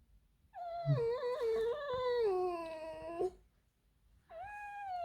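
A pet fox squeaking: two long, drawn-out whining calls that fall slightly in pitch, with a short pause between them. This is her territorial warning squeak at a person coming too close.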